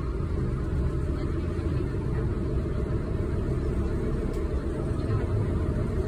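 River ferry's engine running steadily under way, a continuous low rumble heard from on board.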